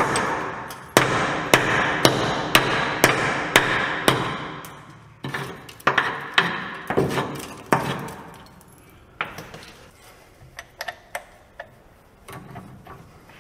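Hammer striking a truck frame's steel body-mount bracket about twice a second, each blow ringing briefly, to knock out the charred remains of the old rubber mount. The blows thin out and stop about eight seconds in, leaving only light clicks and taps.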